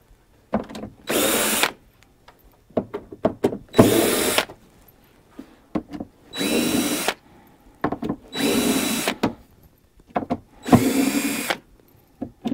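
Cordless drill-driver backing Phillips screws out of a wooden crate lid: about five short runs, each spinning up with a rising whine and stopping after about a second. Small clicks and knocks come between the runs.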